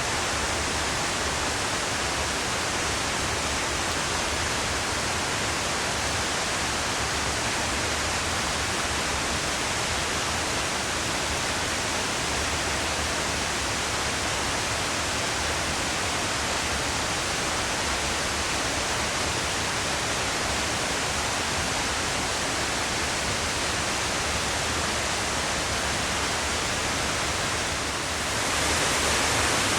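Yonako Great Waterfall's water plunging down the cliff, a steady, even rushing roar. Near the end it dips briefly, then comes back a little louder and brighter.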